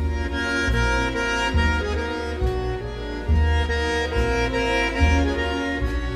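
Bandoneon playing sustained reed notes in a tango-style piece, with low bass notes pulsing about once a second beneath it and bowed strings in the accompaniment.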